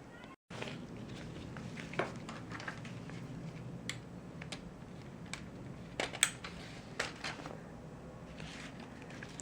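Plastic Lego parts being handled: scattered light clicks and clatter at irregular intervals, the loudest pair about six seconds in, over a low steady room hum.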